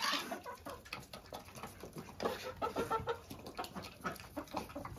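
Domestic hens clucking in short, scattered calls as they peck at food around their feed bowls, with small pecking taps among them; the calls are busiest about halfway through.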